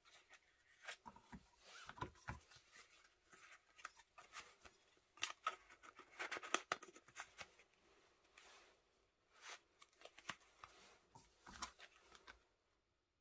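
Faint handling of cards and a vegetable-tanned leather card wallet: cards sliding against the leather slots, with irregular light scrapes, rubs and taps, busiest about midway.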